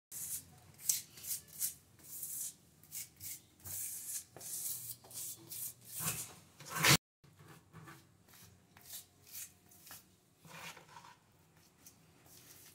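Grout float rubbed and scraped across wall tiles in repeated short strokes, working grout into the joints, with a brief gap about seven seconds in.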